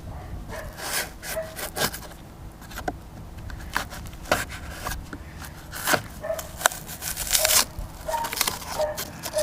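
A hacksaw blade, worked by hand, rasping through the boat's deck in irregular strokes about once a second. A dog whimpers in short, repeated high cries in the background.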